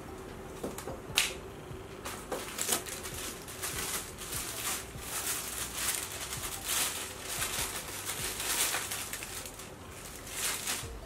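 Packaging from a camera box being handled: a plastic sleeve and paper booklets rustling and crinkling in a run of quick crackles. There is one sharp click about a second in.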